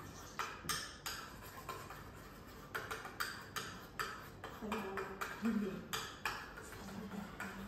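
Metal spoon stirring in a stainless steel pot, clinking and scraping against its sides in irregular short knocks.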